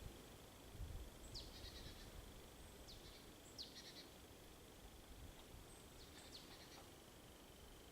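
Faint bird calls: a few short, high notes that slide sharply downward, each followed by a quick chattering trill, about four times. Behind them are a faint steady high tone and a low rumble.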